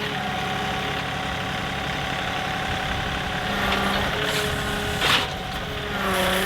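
John Deere 2038R compact tractor's three-cylinder diesel running under work, its pitch sagging and recovering a few times as the loader hydraulics are worked. A sharp knock about five seconds in.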